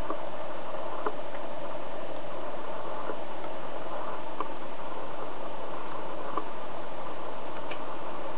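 Scattered light clicks of computer keys, about six spread irregularly over several seconds, as a command is typed into the CNC control software, over a steady whirring background noise.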